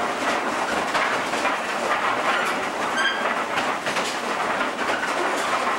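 Wooden powder mill running, its brass wheels rolling round the wooden trough and grinding the powder mixture: a steady clattering rumble, with a brief squeak about three seconds in.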